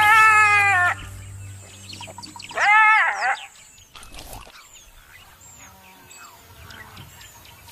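Jackal giving two loud warning calls at a wild dog near its den: the first at the start, sliding slightly down in pitch, the second about two and a half seconds later, rising and then falling. Faint high bird chirps follow.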